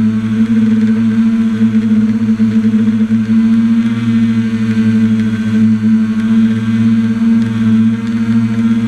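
A drone's electric motors and propellers give a steady, loud hum with a low pitched drone and its overtones, heard up close from the camera mounted on the craft as it hovers and drifts slowly.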